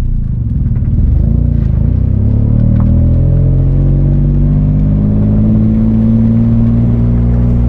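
Nissan 350Z's 3.5-litre V6 engine under load. The revs waver up and down for a moment, then climb slowly and steadily.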